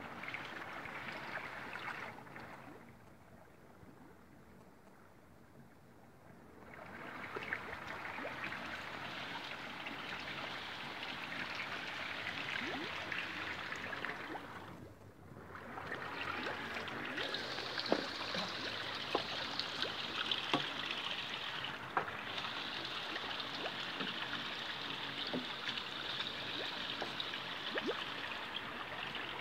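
Steady hiss of running water. It fades for a few seconds near the start and drops out briefly midway.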